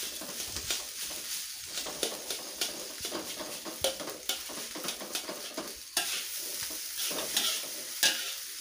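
Fried rice sizzling in a metal wok while a metal spatula stirs and scrapes it, with frequent sharp clinks of the spatula against the pan.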